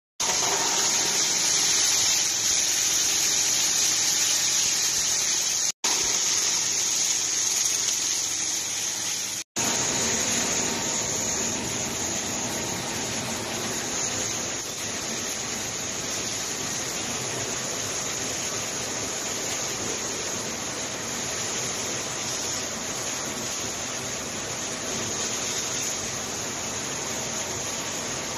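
Waste-clothing recycling machines running: the fibre-opening machines and their fibre-conveying fans make a steady rushing hiss. The sound cuts out briefly twice, once about six seconds in and again about nine and a half seconds in.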